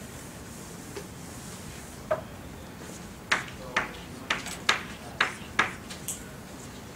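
Chalk tapping against a blackboard while writing: about six sharp taps, roughly half a second apart, starting about three seconds in, with one lone tap before them.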